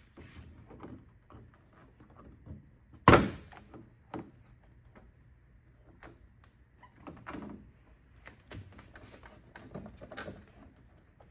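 Plastic trim panel on a Ram pickup's front corner being pulled and wiggled free by hand: one loud sharp snap about three seconds in as its fastening clips let go, then scattered lighter plastic clicks and knocks, with another knock near the end.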